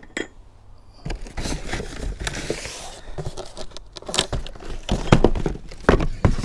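Unboxed garden shredder parts and packaging being handled: irregular clatter and knocks with rustling, the loudest knocks in the second half.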